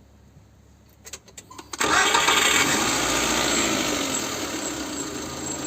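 Wuling Hongguang 1.5-litre petrol engine starting about two seconds in, flaring up briefly and then settling into a steady idle. At idle it runs normally, without the abnormal noise that appears only when revved.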